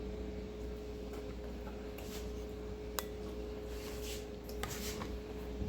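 Light kitchen handling sounds: a few sharp clicks and taps, the clearest about three seconds in, and brief scraping swishes near the end, over a steady low hum.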